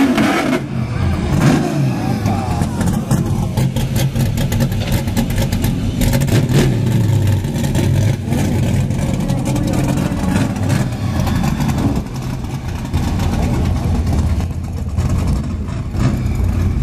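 Drag-race car engines from the open six- and eight-cylinder Chevrolet class running loudly and revving up and down.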